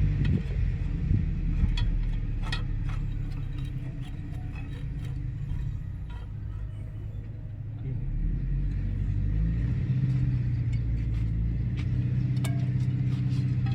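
A heavy machine's engine running steadily. It drops back for a few seconds, then grows louder about eight seconds in, with scattered light knocks and clinks over it.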